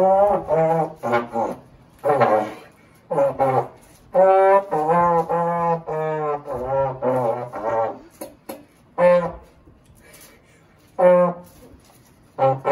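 Trombone played in short phrases of separate held notes with pauses between them: a longer run of notes in the middle, then two lone notes near the end.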